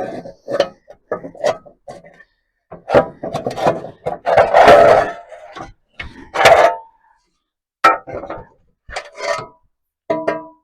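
Irregular clanks and knocks of steel pieces and hand tools being handled and set down on a workbench, some ringing briefly, with the loudest cluster about four to five seconds in.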